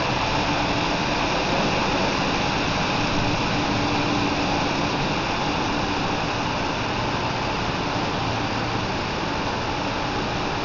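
Brush-roller washing machine running, with water spraying from its spray bar onto the turning brush rollers: a steady rushing hiss over a faint machine hum.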